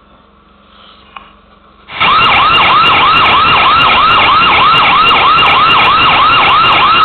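AI security camera's warning siren sounding, set off by an intruder detection: a loud, fast repeating wail of about three sweeps a second. It starts suddenly about two seconds in and cuts off abruptly near the end.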